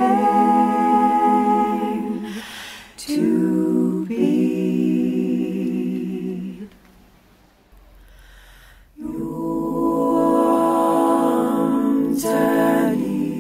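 Wordless a cappella voices singing long held notes, breaking off briefly near the start and falling quiet for about two seconds in the middle before the held notes resume.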